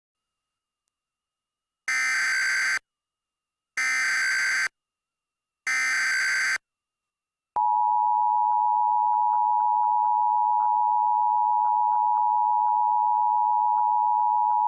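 Emergency Alert System header: three identical bursts of screechy digital data tones, each about a second long with a second's gap between them. About seven and a half seconds in, the EAS attention signal begins, a steady, harsh two-tone alarm that holds unbroken.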